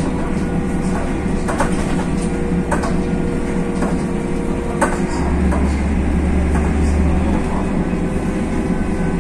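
Cabin noise of a BredaMenarinibus M240 city bus on the move: the steady low drone of its Mercedes OM906 LA six-cylinder diesel and road rumble, with scattered rattles and clicks from the body and fittings. The low rumble grows louder for about two seconds just past the middle.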